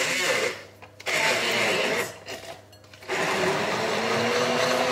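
Hand-held stick blender whizzing chickpeas, egg, garlic and curry powder into pakora batter in a beaker. It runs in bursts: it stops about half a second in, runs again for about a second, then starts again about three seconds in.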